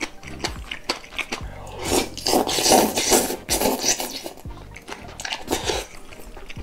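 A person loudly slurping cold soy-milk noodles (kongguksu) from a glass bowl, a long slurp about two to four seconds in. Chopsticks click against the glass bowl while stirring the noodles before and after.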